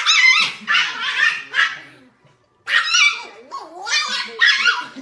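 A dog barking and yipping in a quick series of short, high calls that bend in pitch, with a brief pause about two seconds in.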